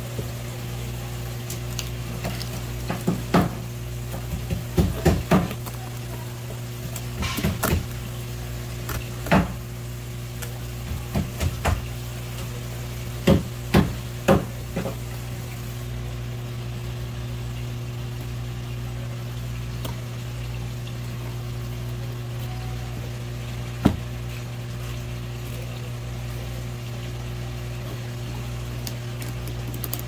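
Knife work on a cutting board as a rock bream is filleted: a run of short knocks and taps in the first half and one more knock near the end. Under them runs a steady low hum with a faint watery hiss.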